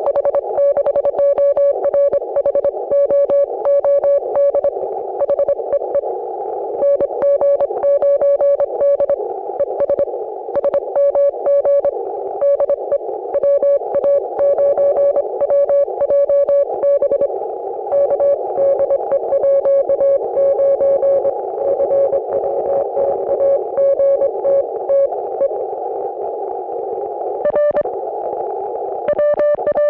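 Morse code (CW) signal coming through an HF amateur radio receiver: a tone near 600 Hz keyed on and off in dits and dahs, over a steady hiss of band noise narrowed by the receiver's CW filter, with scattered clicks of static. For a stretch in the middle the signal is a little lower in pitch and weaker.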